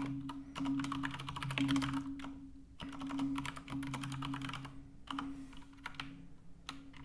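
Typing on a computer keyboard: quick runs of keystrokes for about five seconds, then a few scattered key presses.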